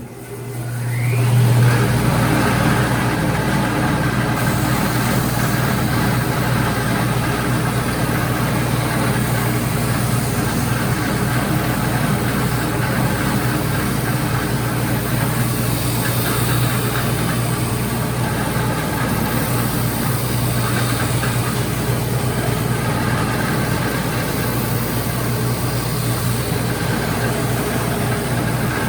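Electric disc sander spinning up over the first second or two after being switched on, then running steadily with a strong hum while a workpiece is pressed and rotated against the disc to smooth an outside curve.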